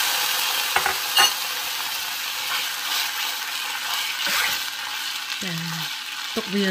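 Red sauce sizzling in a hot saucepan over garlic fried in oil, the hiss slowly dying down as a wooden spoon stirs it. Two light knocks about a second in.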